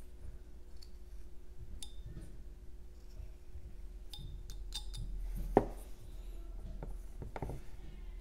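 Carving knife paring thin slices from a small block of jelutong: scattered crisp snicks and scrapes of the blade through the wood, with a sharper knock about five and a half seconds in, over a faint steady hum.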